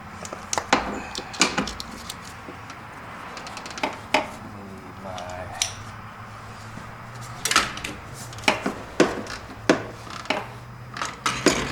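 Hand tools clinking and knocking on engine parts: irregular sharp metallic clicks and taps from wrenches and sockets being worked in an engine bay, over a steady low hum.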